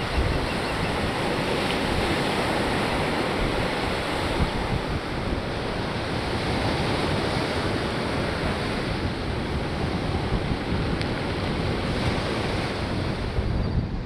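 Ocean surf breaking and washing up a sandy beach, a steady rushing noise, with wind buffeting the microphone.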